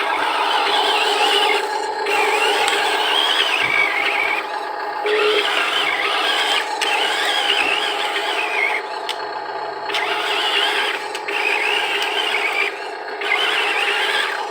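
Electric drive motors and plastic gearboxes of a Huina radio-controlled construction vehicle whining as they work, the pitch wavering with the load and dropping out briefly a few times, over gritty scraping from sand.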